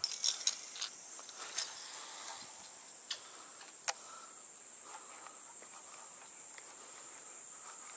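Steady high-pitched drone of an insect chorus, with several sharp clicks in the first four seconds, the loudest about a second and a half in.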